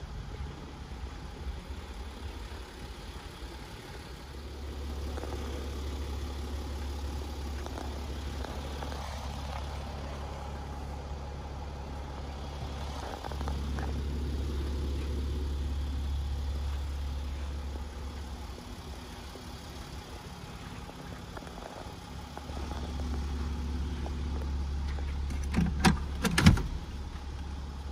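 Mercedes-Benz GL 350d's V6 diesel engine idling with a steady low hum that swells and eases in long stretches. A few sharp knocks sound near the end.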